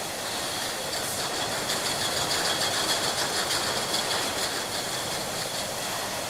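Glass bottles clinking against each other on a factory line: a dense, rapid patter of small glassy clinks over a steady machine noise. The clinks thicken about a second in.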